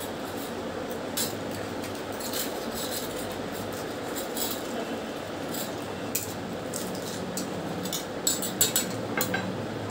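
Scattered light clinks and clicks of fingers working at stainless steel bowls and plates while crisp fuchka (pani puri) shells are broken and filled, thickest near the end, over a steady low hum.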